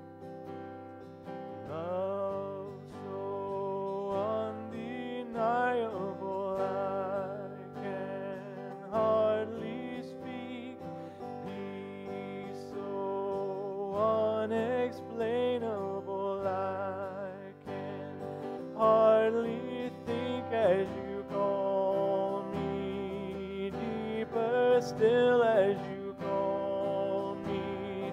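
Acoustic guitar playing a slow worship song without words, with a wavering, gliding melody line over the chords.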